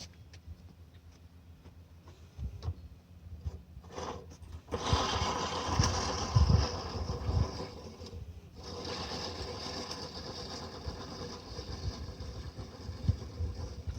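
Push reel lawnmower cutting grass: the spinning reel blades whir and clatter, starting about five seconds in and pausing briefly about eight seconds in, with a few low thumps as the mower is pushed.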